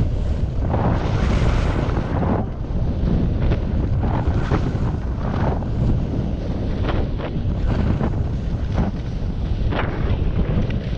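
Wind rushing over a GoPro action camera's microphone as a skier descends at about 28 km/h, with short hissing scrapes of the skis on the snow about every second.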